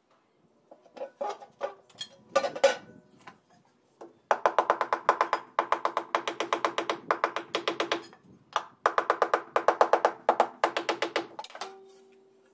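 Rubber mallet tapping ceramic floor tiles down into adhesive: rapid, evenly spaced knocks, about six a second, in three runs of one to two and a half seconds, after a few scattered knocks. A steady low hum starts near the end.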